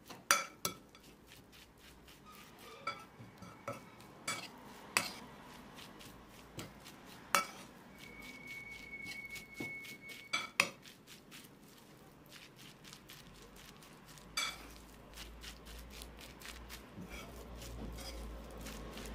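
Metal fork stirring grated raw potato and flour in a bowl, with soft rustling from the shreds and irregular sharp clinks as the fork strikes the bowl's side.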